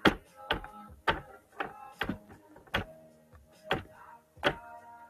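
A hand repeatedly slamming down on pizza on a metal wire cooling rack: about eight sharp knocks at uneven intervals. Faint background music plays under them.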